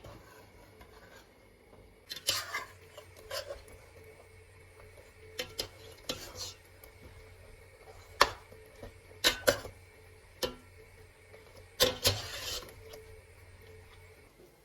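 Kitchenware clinking and knocking: about ten sharp, irregularly spaced knocks and clinks of dishes and utensils, some ringing briefly, over a steady low hum.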